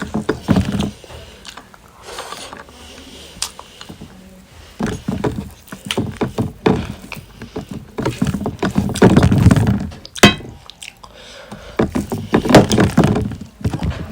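Close-up eating sounds: chewing and mouth noises in irregular loud bursts, with sharp clicks and knocks between them.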